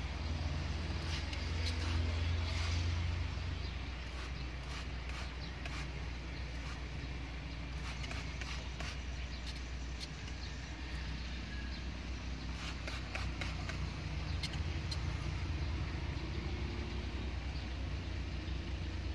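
A cutter blade scraping wet window tint off a car's door glass in short strokes, heard as scattered clusters of faint ticks over a steady low rumble.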